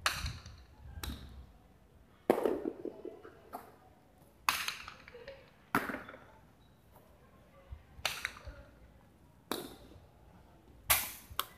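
Jai alai ball (pelota) cracking against the fronton's wall and floor in a rally: about ten sharp, hard cracks at uneven intervals of one to two seconds, each with a short echo, the loudest near the end.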